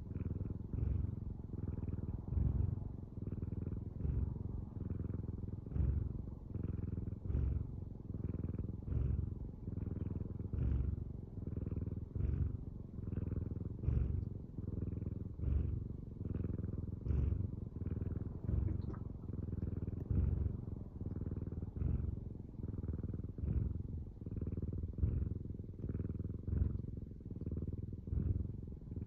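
Domestic cat purring steadily, the low rumble swelling and easing in an even rhythm roughly once a second.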